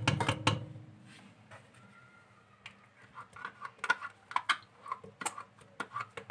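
A spoon clattering against a stainless steel mixing bowl in the first half second, then a run of short clicks and scrapes as the spoon scrapes yogurt out of a plastic yogurt pot.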